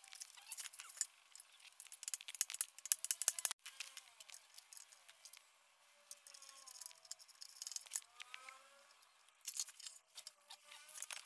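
Light metallic clicks and rattles as the steel parts and housing of a Suzuki Swift's removed rack-and-pinion steering rack are handled and worked on during disassembly. They are busiest in the first few seconds and again near the end.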